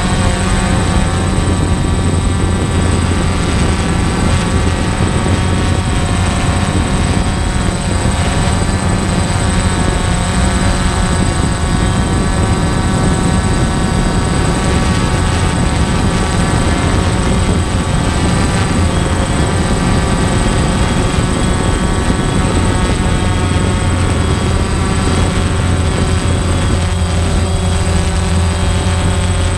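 Quadcopter drone's electric motors and propellers spinning, a steady multi-tone buzz with many overtones that wavers slightly in pitch.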